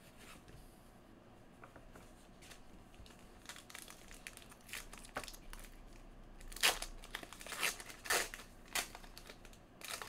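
Foil trading-card pack wrapper crinkling and crackling as fingers work it open. Faint at first, then a string of sharp crinkles from about halfway through.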